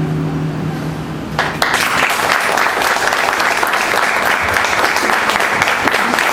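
Last nylon-string guitar chord ringing out and fading, then audience applause breaking out suddenly about a second and a half in and going on steadily.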